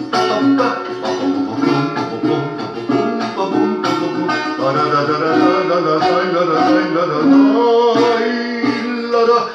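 A man singing while strumming a small nylon-string guitar, with regular strummed chords under a held, wavering vocal line.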